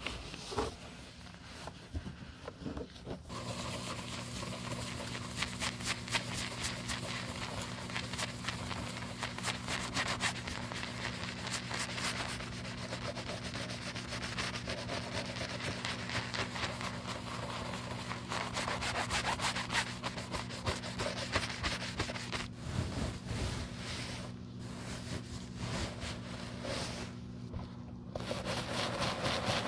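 A soft-bristle brush scrubbing soapy lather over the smooth leather of a Prada loafer in rapid rubbing strokes, during the lather-cleaning stage of restoring the mouldy shoe. The scrubbing starts about three seconds in, after a quieter moment, and pauses briefly twice near the end.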